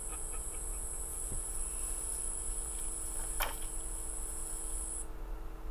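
Insects trilling in a swamp, a steady high-pitched chorus that cuts off suddenly about five seconds in. A single quick falling sweep sounds about three and a half seconds in, over a faint low hum.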